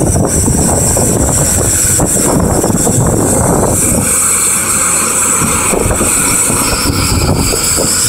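Caterpillar 329D excavator running loud and steady, with a thin high whine held over the low engine noise.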